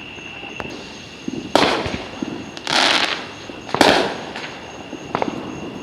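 Fireworks going off: three loud bangs about a second apart, the middle one a longer crackling burst, with smaller pops in between.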